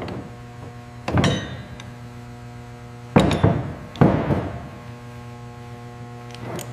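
Several sharp metal clanks and knocks, as of tools on metal parts being taken apart: one about a second in that rings briefly, then three in quick succession around three to four seconds in. They sit over a steady low hum.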